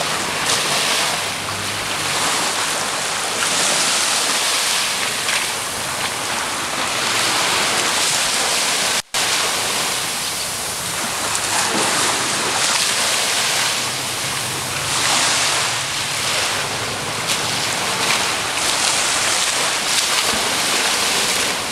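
Sea surf washing in over the shore, a steady rushing that swells and eases every few seconds, with wind on the microphone. The sound drops out for an instant about nine seconds in.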